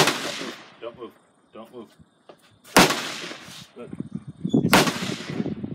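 Three gunshots at the start, about three seconds in and about five seconds in, each with a trailing echo. Faint voices lie in between.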